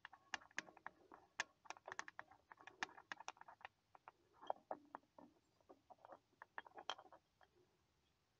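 Faint, irregular quick clicks and taps of hands working loose the metal cap at the bottom of a diesel tractor's fuel filter. The clicks come thick and fast at first and thin out after about seven seconds.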